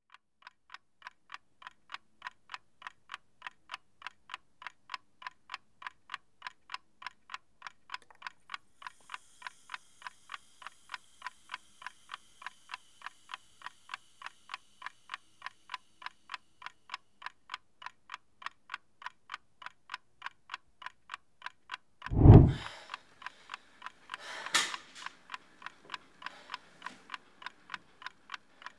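A clock ticking steadily and fast, about three ticks a second. About three-quarters of the way in, a deep boom, the loudest sound, cuts across the ticking, and a sharper crash follows about two seconds later.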